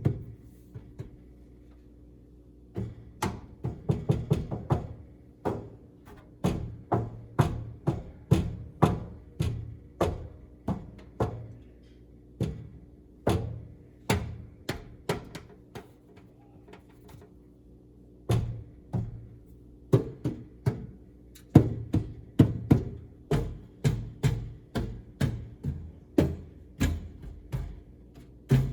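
Repeated tapping on a GE Cafe series microwave: sharp knocks about one or two a second, with a few short pauses, over a faint steady hum from the running oven. The tapping is a search for the source of a persistent vibrating noise inside the microwave.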